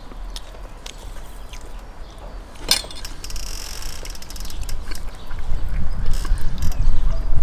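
Close-up eating sounds of grilled chicken being torn apart by hand and chewed, with scattered clicks and a quick rattling run of clicks a little before the middle. A low rumble builds from about five seconds in.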